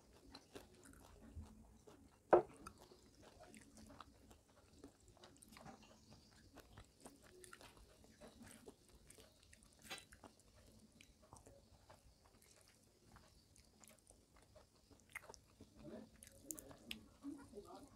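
Close-miked eating sounds: fingers squishing and mixing rice and dal on a plate, small clicks and chewing. One sharp knock about two seconds in.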